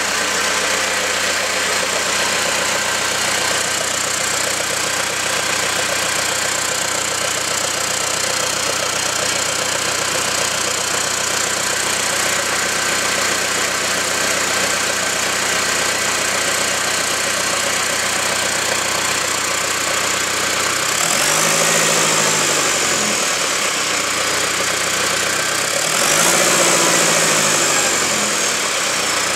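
Freshly overhauled Perkins 1104D four-cylinder turbo diesel engine, fitted with a replacement Bosch fuel pump, running steadily at idle. About 21 seconds in its revs rise and fall back, and again near the end.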